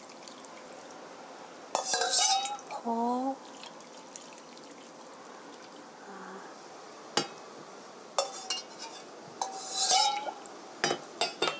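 A ceramic mug scraping and clinking against a stainless steel bowl as water is scooped out and poured over the chicken and vegetables in a pot. There are two louder squeaky scrapes, about two seconds in and near the end, and several sharp clinks in between and at the end.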